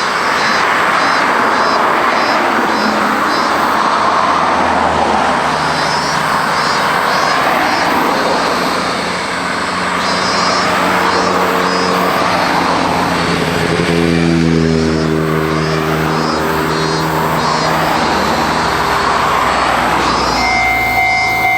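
Road vehicles passing one after another, each swelling and fading as it goes by, with a deeper engine note in the middle. About 20 seconds in, a Japanese level crossing's warning bell starts ringing with a steady electronic ding, signalling an approaching train.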